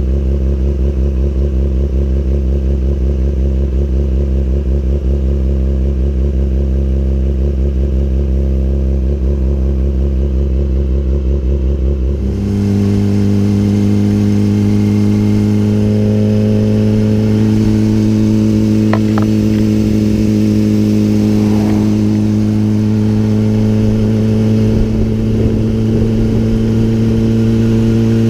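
Sport motorcycle engine idling steadily. About twelve seconds in, the bike pulls away and settles at a steady cruising note, higher in pitch, with wind and road noise on the mounted camera's microphone.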